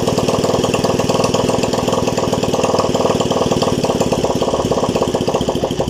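Freshly overhauled Honda TMX 155 single-cylinder four-stroke motorcycle engine idling steadily.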